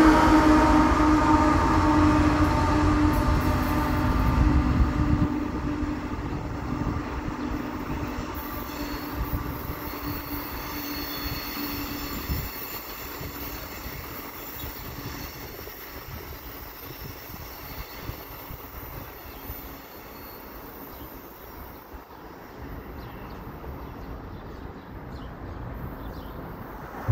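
CSX diesel freight locomotive passing close by with its engine drone and a low rail rumble. The sound fades steadily over about twelve seconds as the train moves away, leaving a faint distant rumble.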